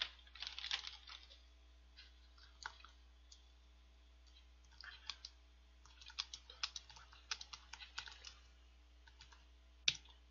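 Computer keyboard typing in short, irregular runs of clicks, the densest run about five to eight seconds in.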